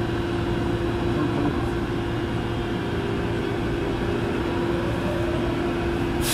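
Subway train heard from inside the car: a steady running rumble with a constant hum, and a faint rising whine near the end.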